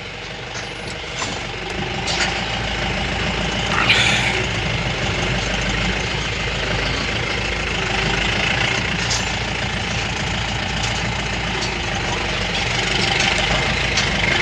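Pickup truck engine running as the truck is reversed, with a short sharp click about four seconds in.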